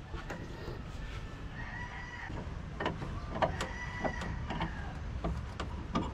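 A rooster crowing twice, each crow held about a second, over scattered sharp knocks of a hammer on timber.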